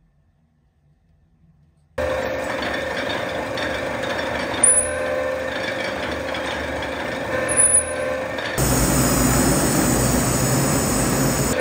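A metal rolling mill running with a steady geared hum and two brief high squeaks as a copper-and-silver mokume gane billet is rolled. Near the end it gives way to the steady hiss of a gas torch flame heating the billet.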